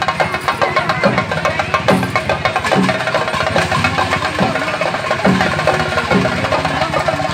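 Procession drums played live in a fast, dense rhythm, with a heavier low beat landing about every 0.8 seconds. They accompany a Karinkaliyattam ritual dance.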